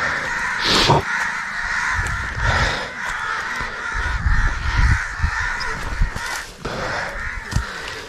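Crows cawing steadily in a continuous rough chorus, with low rumbling thumps from the microphone being moved about.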